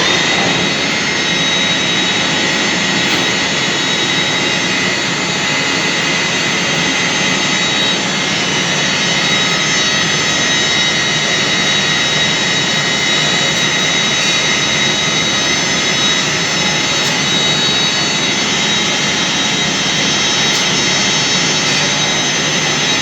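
Metalworking lathe running steadily: an even machine noise with a high, steady whine.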